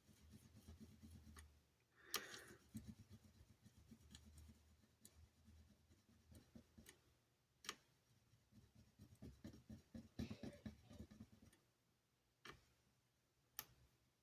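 Near silence, with a few faint scattered clicks and light taps of small hand tools on a circuit board during soldering. The sharpest click comes about two seconds in, over faint low rustling.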